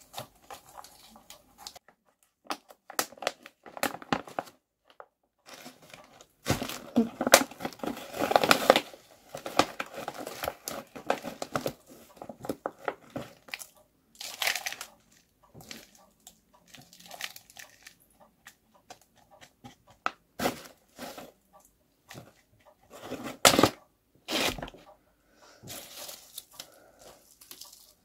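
Hands working a plant, its roots and potting soil into a pot during repotting: irregular rustling, crinkling and scraping, with a few louder bursts.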